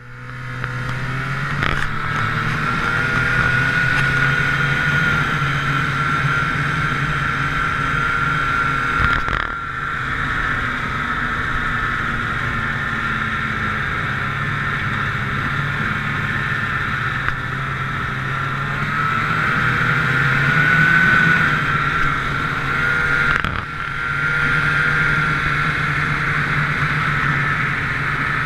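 Snowmobile engine running under way, heard from on the sled itself. Its speed holds steady for long stretches, drops briefly about a third of the way in and again near the end, and climbs for a few seconds in between.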